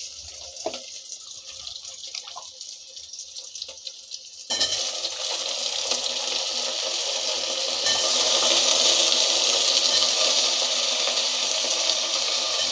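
Onions and tempering frying quietly in oil in an aluminium pot. About four seconds in, a sudden steady sizzle starts as cut brinjal pieces fry in the hot oil, and it grows louder a few seconds later.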